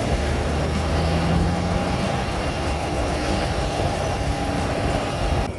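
Jet airliner engines running, a loud steady rush with a low hum and a faint steady whine, cut off abruptly just before the end.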